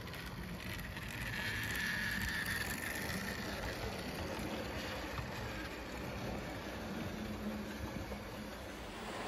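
Model Class 90 electric locomotive and its coaches running past on the layout's track: a steady running noise with a high whine, loudest as the locomotive goes by about two seconds in, then easing as the coaches follow.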